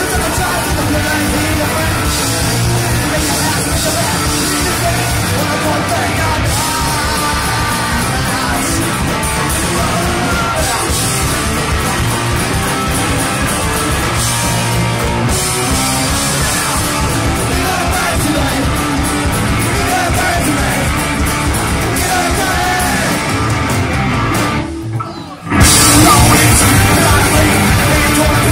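A punk band playing live and loud, with electric guitar, drums and yelled vocals. About 25 seconds in, the music drops out for about a second, then comes back louder.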